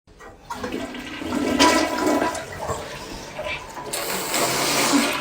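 Toilet flushing: a rush of water that builds over the first seconds and turns to a brighter hiss about four seconds in.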